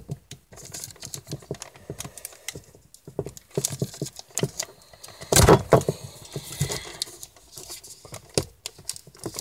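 Plastic shrink wrap on a card tin crinkling and crackling as fingers pick and peel at it, with a louder crackle a little past halfway.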